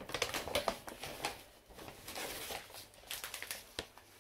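Plastic and paper food packaging rustling and crinkling as items are handled and taken out of a bag, in irregular short bursts that thin out near the end.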